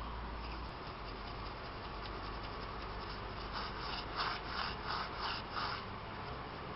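A brush scrubbing a diesel-soaked engine block casting: about six short scratchy strokes, roughly three a second, starting about halfway through, over a steady faint hiss.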